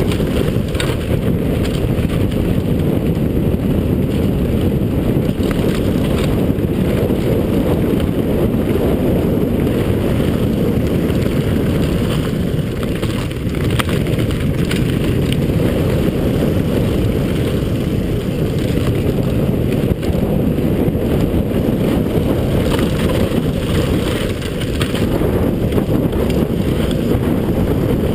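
Steady, loud wind noise on the microphone of a camera riding on a mountain bike descending a dirt trail, with the tyres and frame giving frequent small clicks and knocks over the rough ground.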